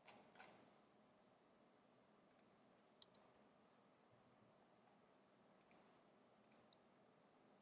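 Near silence broken by a few faint, scattered computer clicks, several coming in quick pairs, as the editor and terminal are worked.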